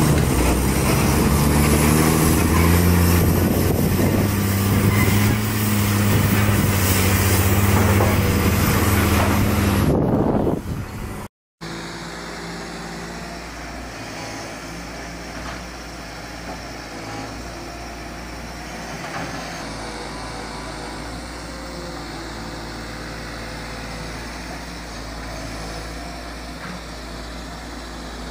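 A motor running, rising in pitch at first and then holding steady, cut off abruptly about eleven seconds in; after a moment of silence a quieter steady hum carries on.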